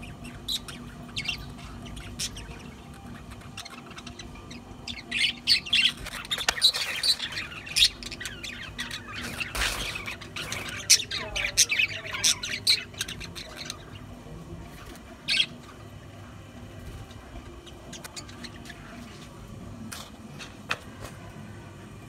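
Budgerigars chirping and squawking: a few scattered calls at first, a dense run of overlapping calls from about a quarter of the way in to just past the middle, then sparse single calls again.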